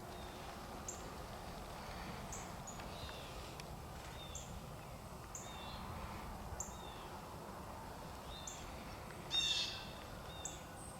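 Small woodland songbirds calling: short high chirps about once a second, with a louder, rapid song phrase of falling notes near the end.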